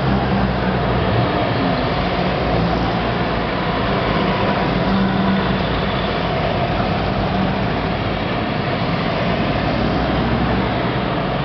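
A column of WWII Willys MB jeeps driving past, their four-cylinder engines running steadily together with tyre and road noise.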